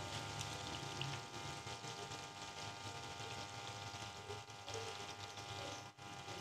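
Samosas deep-frying in a kadhai of hot cooking oil: a steady sizzle with fine crackling, over a faint steady hum.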